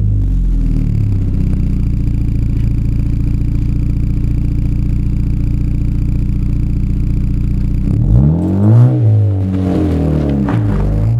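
Ford Fiesta Zetec S engine with a newly fitted exhaust, idling steadily for about eight seconds, then blipped several times near the end so the revs rise quickly and fall back.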